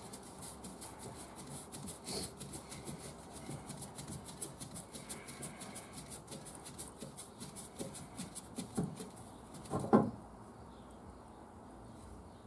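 Spin-on diesel fuel filter being unscrewed by hand from its housing: light rubbing and scraping of a glove on the canister, with faint, fast, even ticking as it turns. A single sharp knock about ten seconds in.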